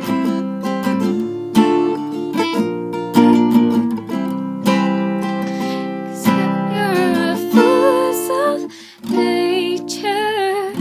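Strummed acoustic string instrument accompaniment in a pop song cover, chords struck in a steady rhythm. In the second half a female voice joins with wordless vocal runs that waver in pitch.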